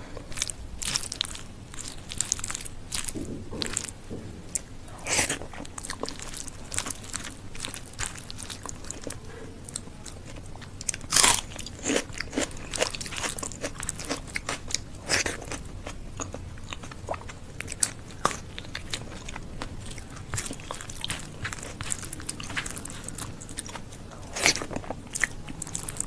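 Close-miked eating: chewing rice mixed with mashed bharta, with wet mouth clicks and fingers mixing the rice on a banana leaf. The clicks come all through, with the loudest about eleven seconds in and again near the end.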